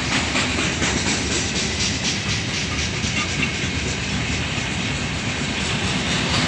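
Freight train of open-top gondola wagons rolling past close by: a steady rumble of steel wheels on the rails, with repeated clicks as the wheelsets cross the rail joints.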